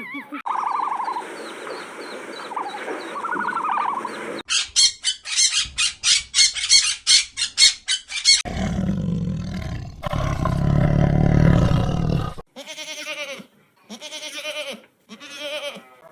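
A run of different animal calls: high chirping calls, then a rapid series of sharp high pulses, then a loud low roar lasting about four seconds, then short repeated calls.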